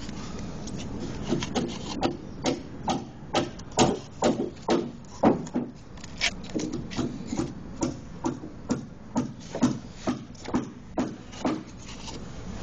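A piece of wood scraping excess epoxy off concrete in short, rough strokes, about two a second, starting about a second in.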